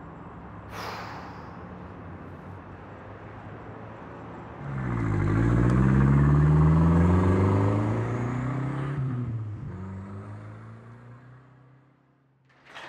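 A car engine running low and steady, then revving up about five seconds in as the car pulls away and accelerates, the sound fading away over the last few seconds.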